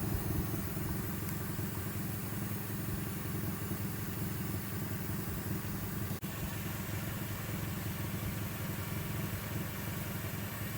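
Steady low mechanical hum of an engine running at idle, with a brief dropout about six seconds in.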